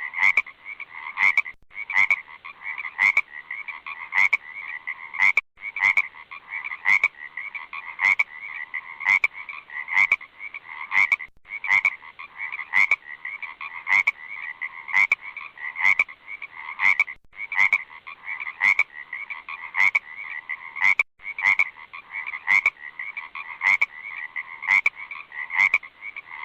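Frogs croaking in a dense chorus, with loud sharp calls standing out about one and a half times a second. Very brief breaks every few seconds.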